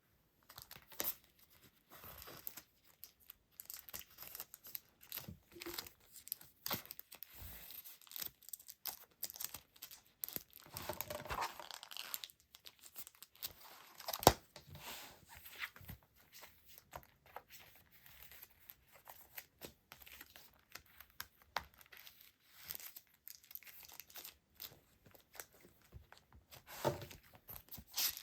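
Plastic and paper packaging being handled by hand, with irregular crinkling, rustling and tearing and small clicks. One sharper click comes about fourteen seconds in.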